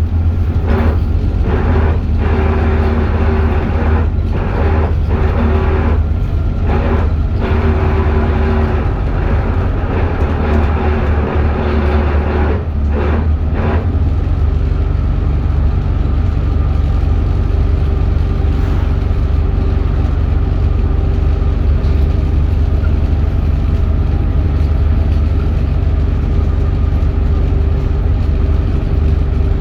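Alexander Dennis Enviro400H hybrid double-decker bus running: a loud, steady low drone with steady whining tones over it, changing character about halfway through.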